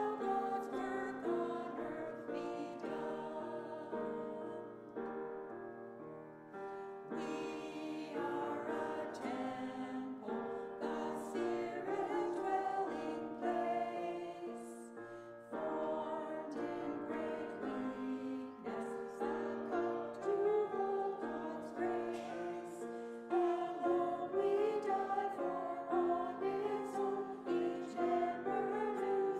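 Voices singing a hymn with piano accompaniment, in long held notes and phrases.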